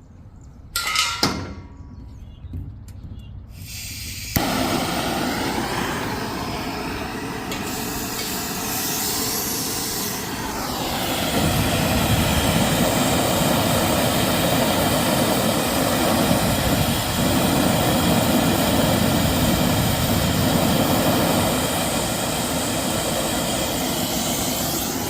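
R-454B refrigerant gas hissing out of an opened cylinder valve. It starts suddenly about four seconds in and runs steadily, growing fuller and louder at about eleven seconds.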